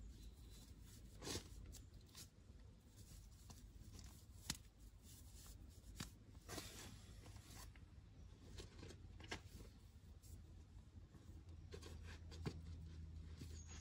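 Near silence with faint scattered rustling and a few short, sharp clicks.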